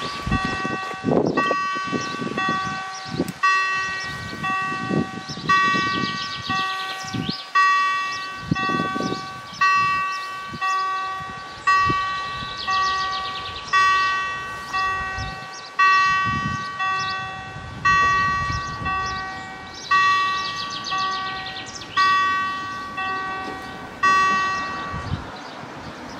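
German level crossing warning bell ringing in an even, repeating pattern, with a stronger stroke about every two seconds. It signals that the crossing is closing for an approaching train while the half-barriers come down.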